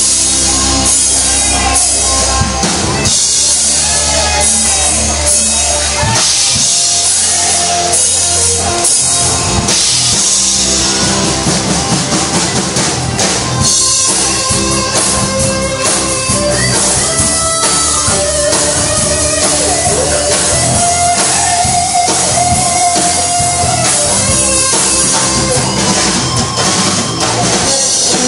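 Rock music with a drum kit and guitar, and a held melody line through the middle.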